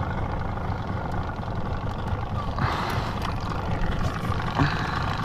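Small boat's outboard motor running steadily at low speed as the boat idles past a jug, with water and wind noise and a brief rush of noise about two and a half seconds in.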